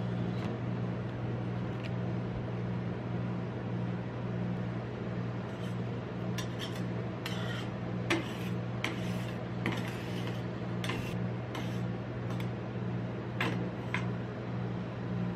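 Metal spatulas clinking and scraping on a rolled-ice-cream machine's steel cold plate as they gather raspberries, in a string of sharp clicks through the middle of the stretch. Under it runs the machine's steady low hum.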